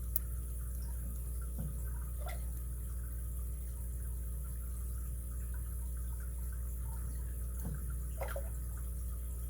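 A lock pick working in the keyway of a 38 mm brass Eagle padlock: a handful of faint, scattered clicks and scrapes of metal on metal, over a steady low hum.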